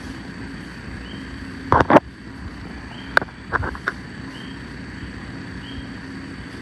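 Sharp knocks and scrapes of hand work against a stripped kitchen backsplash wall as old tile residue is cleared. There is a loud pair of knocks about two seconds in and several more a second or so later, over a steady low hum and a short chirp repeating about every two-thirds of a second.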